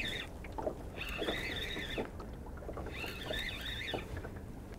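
Fixed-spool spinning reel being wound in bursts about a second long with pauses between, as a small perch is played in on light braid. Light knocks underneath.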